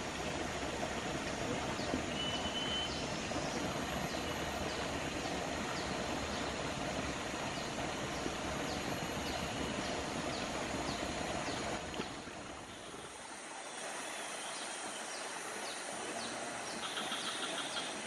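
Steady rushing noise of a flowing forest stream, with a faint high chirp repeating about once a second. About twelve seconds in the water noise drops away, leaving a quieter high hiss.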